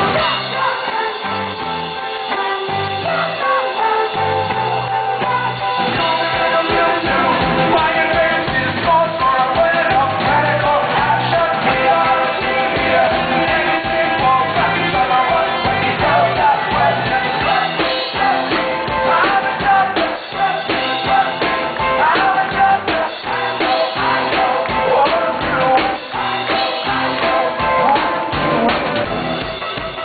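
Live rock band playing: a man singing over electric guitar and drums with a steady beat.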